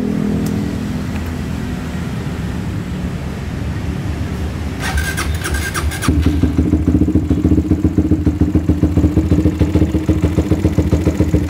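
Suzuki GSX-R150's single-cylinder engine, fitted with a CLD Racing Monster Race aftermarket exhaust with a short 20 cm silencer, being started. About five seconds in there is a brief whir, and then the engine catches and idles at about 1500 rpm with a loud, fast-pulsing exhaust note, booming because of the short silencer.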